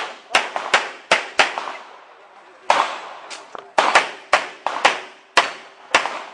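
.40-calibre semi-automatic pistol firing rapid shots in quick groups of two to four, about fifteen in all, with a pause of over a second after the first four. Each report has a short echo.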